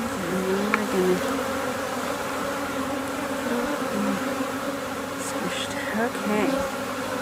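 Honey bees loose from a freshly opened package, buzzing in large numbers around the hive: a steady hum of many wingbeats, with single bees' pitches wavering up and down as they fly close in the first second or so.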